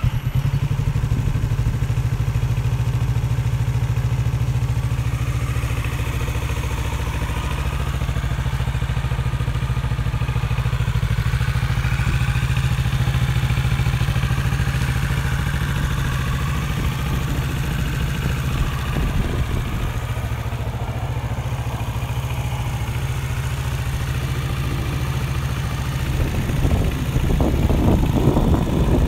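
2019 Kawasaki Z650's 649 cc parallel-twin engine idling steadily through its stock exhaust, a little louder near the end.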